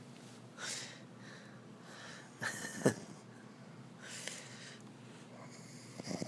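A sleeping man breathing noisily, a short breath about every two seconds, the loudest one about halfway through.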